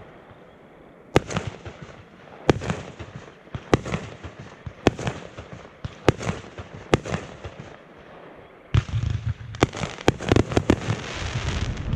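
Aerial fireworks going off: single sharp booms roughly once a second, each with a trailing echo, then about three-quarters of the way in a dense barrage of many quick reports over a low rumble.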